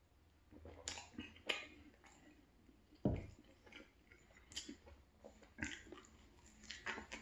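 Close-miked gulps of milk from a glass, then the glass set down on the table with a thump about three seconds in. After that, wet mouth sounds and a bite into a croissant near the end.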